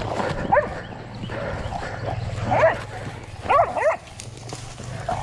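Hog-hunting dogs barking at a wild hog: one bark about half a second in, another near the middle, then a quick run of three barks past three seconds.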